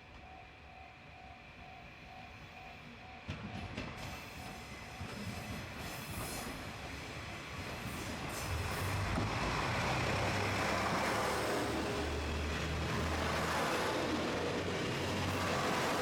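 Level-crossing warning bell dinging steadily for the first few seconds, then a diesel train approaching and passing the crossing. Its rumble builds from about a quarter of the way in and becomes loud about halfway, with a steady low engine drone under it.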